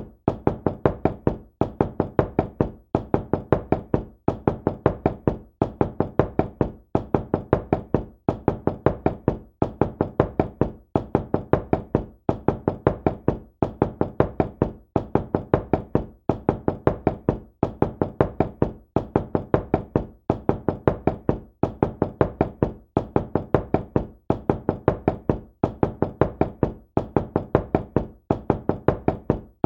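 Knocking on a door: quick clusters of knuckle raps, repeated at an even pace about every second and a half.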